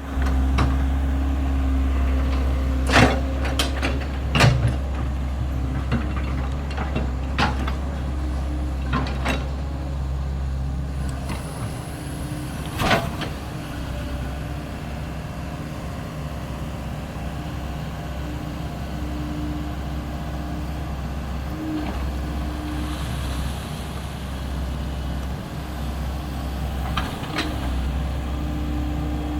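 SANY hydraulic excavator's diesel engine running steadily, with sharp knocks and clanks now and then, most of them in the first half.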